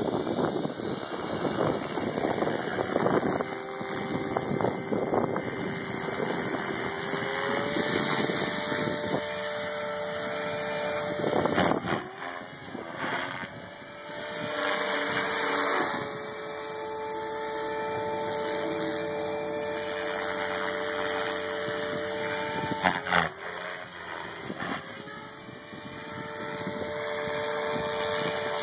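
Align T-Rex 500 electric RC helicopter spooling up and flying: a high motor whine rising in pitch over the first several seconds, with the rotor hum stepping up in pitch, then both holding steady. There are two brief thumps, one near the middle and one later.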